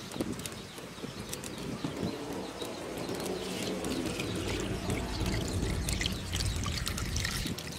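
Fresh coconut water poured from an opened green coconut in a steady stream, splashing onto a whole duck in an aluminium pot.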